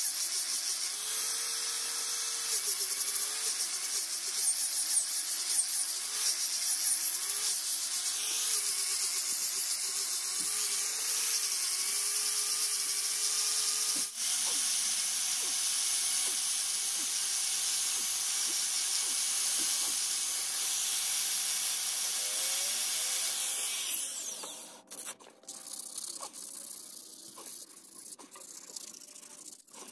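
Makita electric angle grinder with a sanding pad running at high speed against a wooden knife handle, a steady high whine whose pitch wavers as it is pressed to the wood. About three-quarters of the way through it is switched off and the whine falls away, leaving quieter rubbing as the handle is sanded by hand.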